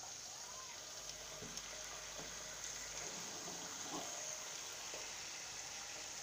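Raw potato chips frying in the hot oil of an electric deep fryer, a steady sizzling hiss.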